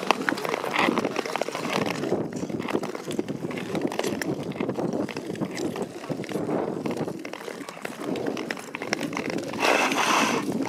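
Ice skate blades scraping and gliding over natural lake ice, a steady rough hiss with small irregular ticks, getting louder near the end.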